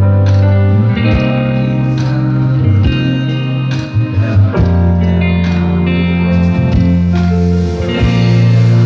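Live band playing through a PA system, with electric guitar to the fore over keyboards and a steady drum beat.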